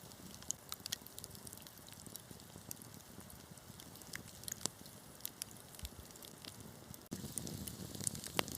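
Wood fire crackling: a steady hiss with scattered sharp pops and snaps. About seven seconds in it suddenly gets louder, with a fuller low rumble of flames.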